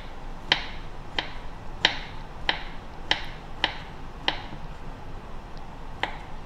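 Kitchen knife chopping through a block of tempeh and knocking on a bamboo cutting board: seven chops at a steady pace of a little under two a second, a pause, then one more near the end.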